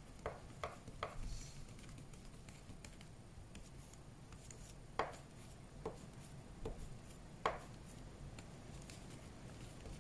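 Stirring stick clicking and scraping against a plastic yogurt pot while stirring thick, lumpy acrylic paint thinned with pouring medium and water. A quick run of faint clicks about a second in, then a few more spaced out in the middle of the stirring.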